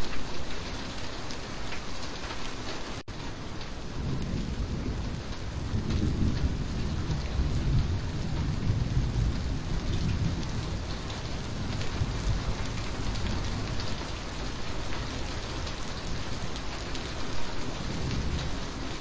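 Steady rain falling, with a low rolling rumble of thunder that swells in the middle and fades. There is a momentary dropout about three seconds in.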